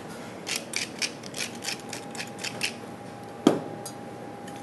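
Wooden pepper mill grinding in a quick run of about ten gritty strokes, followed about a second later by one sharp knock.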